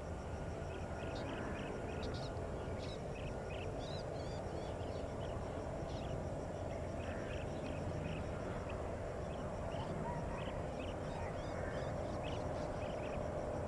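Birds chirping over the steady low rumble of a distant Airbus A320-family jetliner's engines as it comes in to land, with a steady fast high-pitched pulsing behind. The rumble grows slightly louder near the end.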